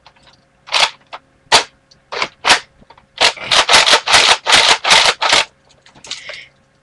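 Sharp clacks and knocks of handling noise right at the microphone: four spaced strikes, then a fast run of about ten in two seconds, then one softer one near the end.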